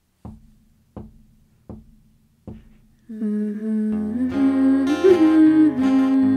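Acoustic guitar song intro: four single plucked notes, evenly spaced about three-quarters of a second apart. Then full strummed chords come in about three seconds in, with a wordless humming melody over them.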